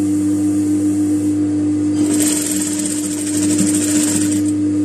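JUKI industrial sewing machine stitching lace trim onto fabric in quick needle runs over a steady hum. It pauses briefly about a second and a half in, then runs again for about two seconds.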